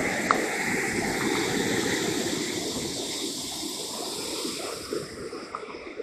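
Steady rushing noise of a waterfall and the river running below it.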